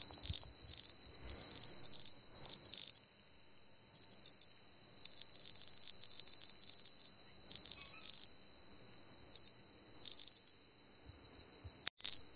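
Small electronic piezo buzzer of a model flood alarm, running off a 9 V battery, sounding one continuous high-pitched tone with a very short break near the end. It is the alarm triggered: the rising water in the model river has reached the water-level sensor.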